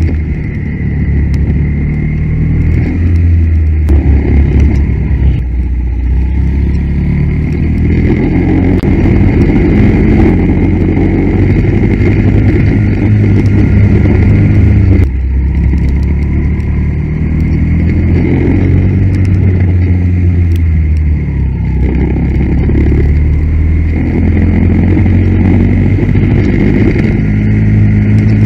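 Go-kart engine heard from on board, the note repeatedly climbing as the kart accelerates and falling back when it slows. There is a sharp drop about halfway through and smaller dips around the fourth and sixth seconds.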